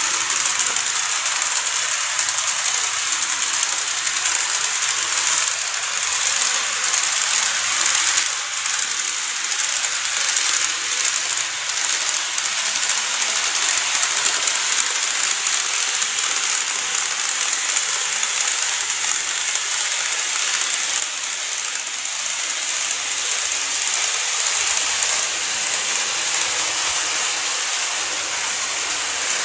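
KATO N-scale 211 series 3000 model train running on the track: a steady hiss of wheels rolling on the rails and the small motor, dipping briefly twice.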